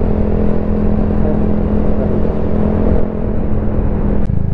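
Yamaha TMAX 560 maxi-scooter's parallel-twin engine running at steady cruising speed, under heavy wind and road noise. Near the end the wind noise drops away abruptly and a steadier, lower engine note remains.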